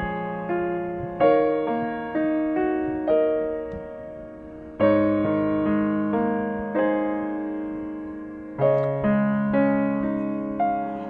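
Background piano music: slow notes and chords, each struck and left to ring and fade, with fuller chords about a second in, near the middle, and again later.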